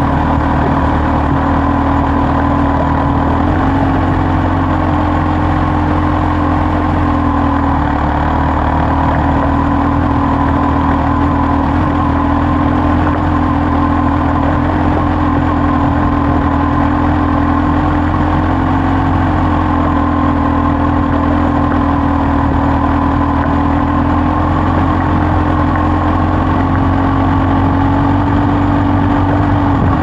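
Kawasaki Z H2's supercharged 998 cc inline-four running steadily at low, near-constant revs.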